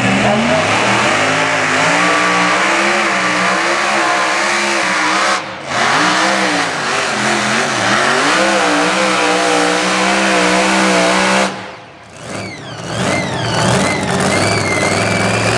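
Mini modified pulling tractor's engine at full throttle hauling the weight sled down the track. The pitch climbs at the start, dips briefly about five seconds in, wavers, then holds high. It cuts off suddenly near twelve seconds in as the pull ends.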